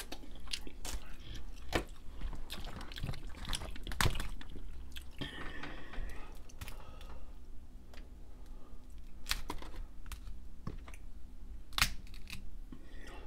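Close-up eating sounds of a boiled Dungeness crab being picked apart by hand: irregular sharp cracks and clicks of crab shell breaking, with chewing in between.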